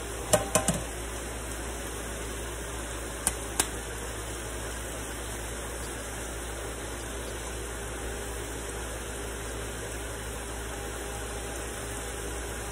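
Steady low hum with a few light clicks and knocks in the first four seconds as a small glass jar is handled, then only the hum while its tight lid is twisted through a cloth.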